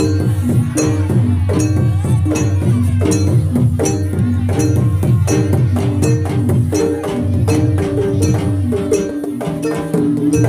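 Javanese jaranan gamelan music: a fast, steady beat of low drum strokes under rapidly repeated pitched metallic notes.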